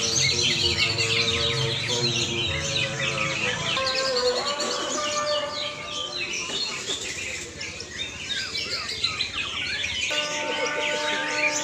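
Several green leafbirds (cucak ijo) singing at once, a dense continuous mix of fast chirps and trills. Steady held tones sound underneath at the start and come back near the end.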